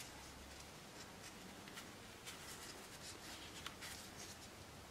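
Faint rustling of cotton fabric and elastic being handled, with a few soft ticks, as a pin is worked through a cloth face mask to hold the elastic ear loop.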